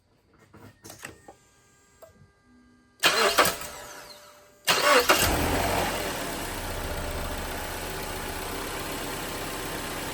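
A few faint clicks, then the Mazda 6's 2.5-litre four-cylinder engine is cranked about 3 seconds in. It catches just before 5 seconds with a brief flare and settles into a steady idle. This is the first start with a newly fitted alternator, which then charges at about 13.5 volts.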